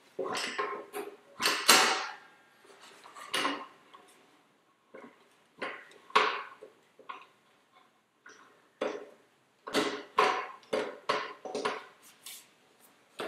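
Irregular metallic clanks, knocks and scrapes of a Rabaconda tyre changer's steel bar and duck head working against a spoked motorcycle wheel as the stiff tyre's second bead is levered up over the duck head, about a dozen strokes with some ringing briefly.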